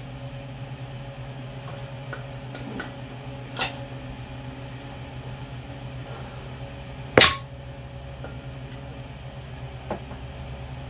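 A few sharp metal clinks and knocks of hand tools being handled at a dirt bike's rear axle; the loudest, with a short ring, comes about seven seconds in. A steady low hum lies underneath.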